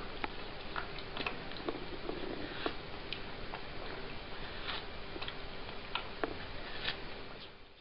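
Domestic cat biting and chewing a slice of watermelon: irregular clicking bites, one or two a second, over a steady background hiss.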